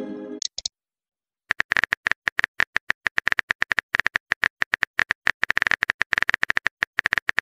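Simulated phone-keyboard typing clicks, a rapid irregular run of short taps as a text message is typed out, starting about a second and a half in. At the very start, the tail of a short chat-app tone dies away.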